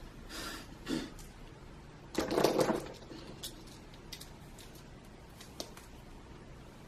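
Soft rustling and handling noises with a few small sharp clicks, as a lace wig and its hair are adjusted on the head; the loudest rustle comes a little past two seconds in.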